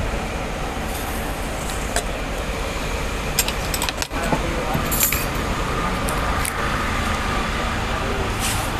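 Steady hum of road traffic, with a few light clinks of metal cutlery against a plate.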